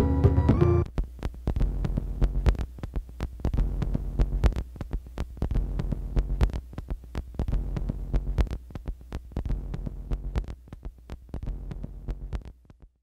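Soundtrack sound design: after the last second of a pitched musical phrase, a low steady hum with scattered, irregular clicks and crackles, fading out near the end.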